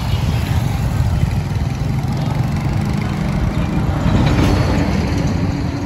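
Street traffic: car and motorbike engines passing on a busy road, heard as a steady low rumble.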